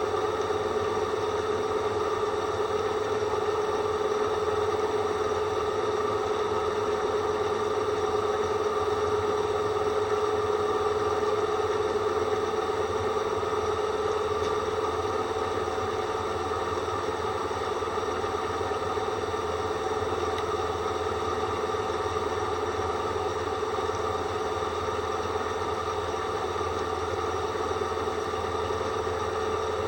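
Drill running with a steady, unbroken whistle from a dull drill bit, one held tone that wavers only slightly in pitch.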